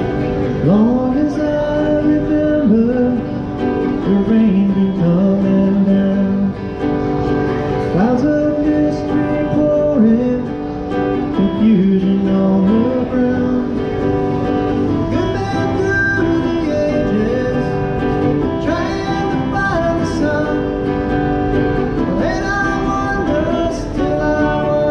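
A man singing to his own acoustic guitar, played live through a microphone and small amplifier, in a country-rock style.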